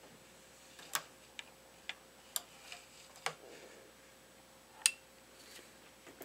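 Irregular sharp metallic clicks, about seven over a few seconds, from the trigger parts of a Zastava M92 PAP AK pistol being handled and worked.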